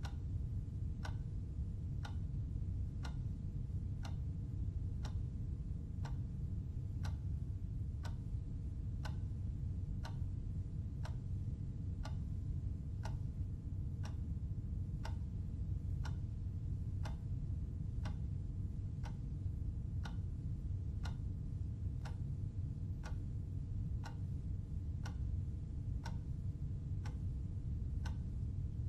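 Countdown timer's clock tick sounding once a second, evenly, marking off the seconds, over a steady low hum.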